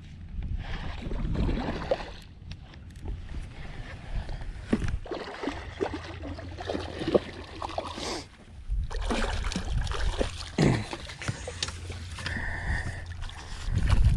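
A hooked fish thrashing and splashing at the water's surface beside a boat as it is played in on rod and reel, in irregular bursts of splashing.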